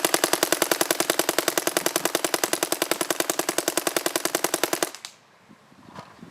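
Paintball marker, an Autococker-style 'cocker', firing a rapid, evenly spaced stream of shots in full rip. The stream stops abruptly about five seconds in.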